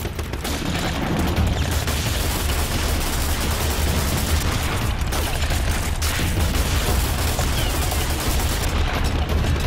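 Continuous battle gunfire: many guns, a pistol and a machine gun among them, firing rapidly, with the shots overlapping into one steady din.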